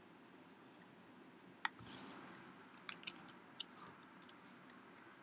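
Quiet room tone with several small, sharp clicks scattered through it; the first and loudest comes about a second and a half in.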